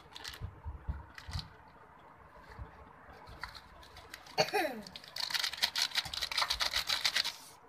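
Plastic spice packet crinkling as tandoori masala powder is shaken out of it into a steel bowl of chicken: a rapid, dense crackle over the last few seconds, after a few soft knocks and clicks near the start.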